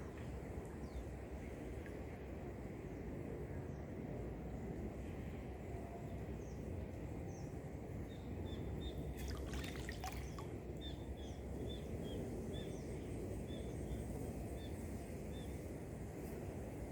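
Outdoor ambience: steady low noise with trickling water. A few clicks come about halfway through. From then on a run of short high chirps repeats about twice a second.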